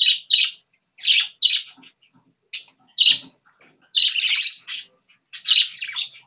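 Pet budgerigars chattering in a string of short, high chirps and squawks, about ten bursts with brief pauses between.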